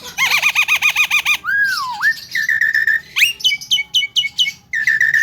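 Javan myna (jalak kebo) calling in a varied string of notes: a fast wavering trill, then a falling whistle, buzzy held notes, and a quick run of about six short downward-sweeping notes.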